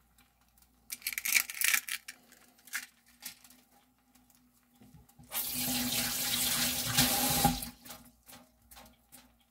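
A few sharp clicks and crackles, then a kitchen tap runs for about two seconds past the middle and is shut off.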